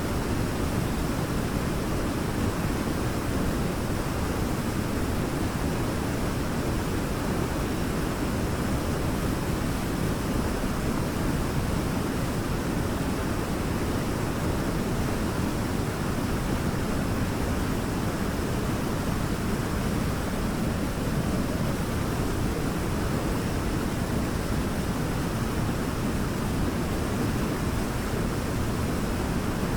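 Waterfall: a steady, deep rush of falling water that stays even throughout.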